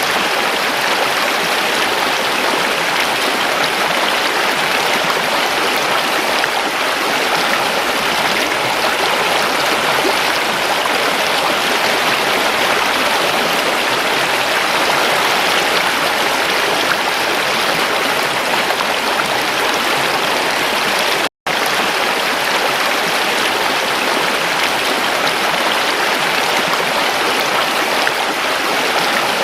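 Water stream flowing with a steady, even rush. There is a brief dropout to silence about two-thirds of the way through.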